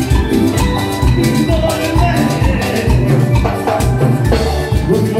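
Loud live Latin dance-band music: a steady drum and bass beat under sustained melodic lines.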